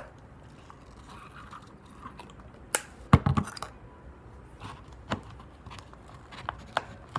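A spoon stirring thick, sticky fluffy slime in a cup: irregular clicks of the spoon against the cup and wet squelches. The busiest, loudest stretch comes about three seconds in, with more scattered clicks near the end.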